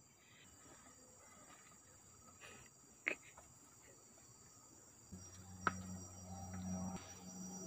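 Faint, steady high-pitched drone of forest insects. Two sharp knocks cut through it, about three and five and a half seconds in, and a low hum joins from about five seconds on.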